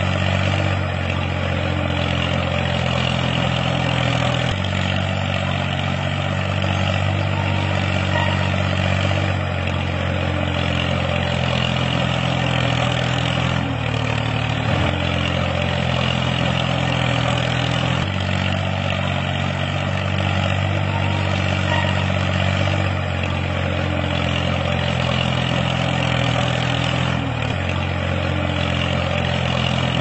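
Tractor engine running steadily at low revs, an even idling hum that shifts slightly every few seconds.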